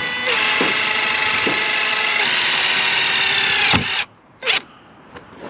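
Makita 18V cordless drill whining steadily as it drives a self-drilling screw into the van's sheet-metal roof. The pitch drops slightly about two seconds in as the screw bites. The motor stops about four seconds in, followed by a short second burst.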